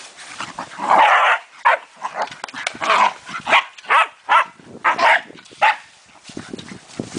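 Scottish terrier puppies barking and yipping in play, a quick run of about a dozen short, sharp barks with a longer one about a second in; they stop about six seconds in.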